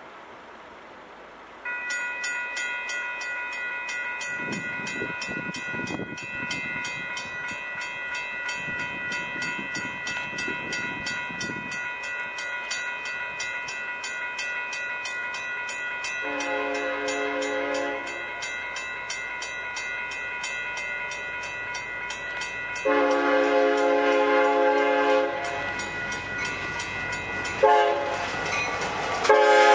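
Grade crossing bell ringing steadily with a fast ticking rhythm from about two seconds in. Over it, the air horn of a Union Pacific SD70ACe diesel locomotive sounds the grade crossing signal, long, long, short, long, growing louder as the train approaches; the final long blast near the end is the loudest.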